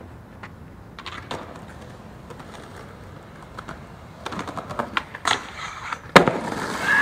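Skateboard rolling on pavement with a few clicks, then the pop and scraping clatter of the board on a metal stair handrail, followed by a loud smack of the landing about six seconds in and the wheels rolling away.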